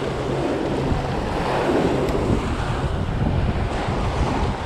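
Choppy surf washing around the legs of someone standing in the shallows, with wind buffeting the microphone.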